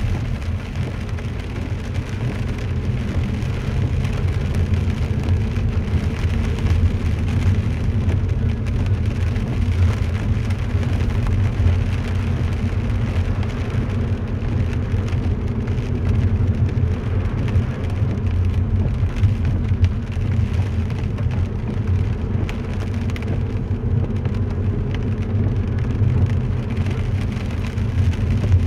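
Steady in-car rumble of a car driving on a wet road, with tyre noise on the wet tarmac and rain on the roof and windscreen.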